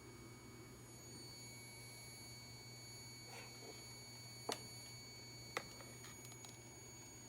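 Faint steady electrical hum with a thin high whine, broken by two sharp clicks about a second apart midway through and a few fainter ticks after them.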